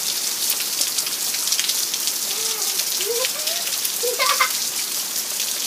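Heavy rain falling steadily: a dense, even wash of noise with many individual drops ticking on wet concrete and puddles.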